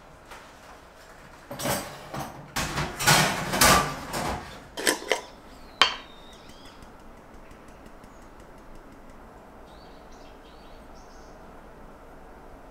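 Clattering and scraping as a metal tin of green tea powder and a plastic bottle are handled and opened on a countertop, ending with a sharp metallic clink about six seconds in.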